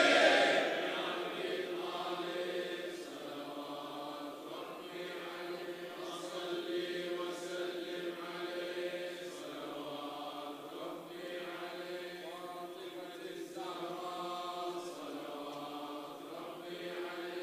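A group of men chanting a devotional chant together, steady and continuous, with a brief loud shout right at the start.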